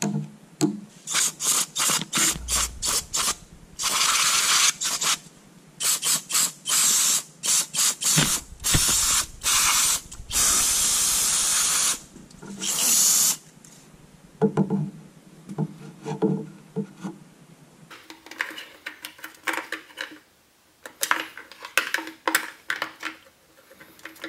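Hissing spray, first as many short quick bursts, then in a few longer steady blasts of a second or more, into an opened chainsaw during repair work. In the last third it gives way to light clicks and rattles of tools and parts being handled.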